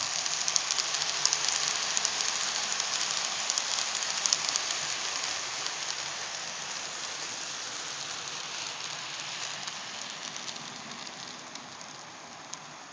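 Model freight train rolling along the layout track: a steady rattling hiss of many small wheels on the rails, with fine clicks, fading gradually as the train moves on.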